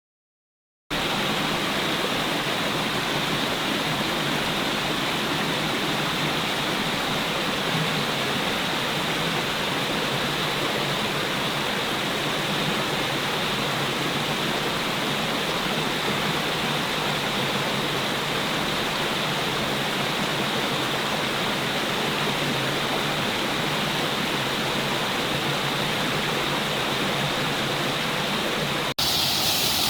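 Steady rushing water, an even, unbroken sound that starts abruptly about a second in. Near the end it cuts suddenly to a different, hissier sound.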